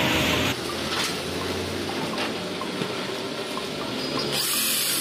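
Corded electric drill boring through an aluminium sliding-door rail, a steady whirr with light clicks, starting about half a second in.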